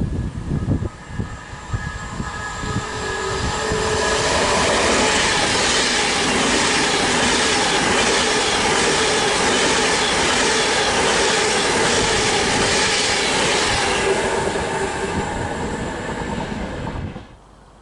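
Class 390 Pendolino electric train passing at speed. It rises as it approaches over the first few seconds, then gives a loud steady rush of wheels on rail for about ten seconds, with a few steady tones through it. It tails off and cuts off suddenly near the end, with wind buffeting the microphone at the start.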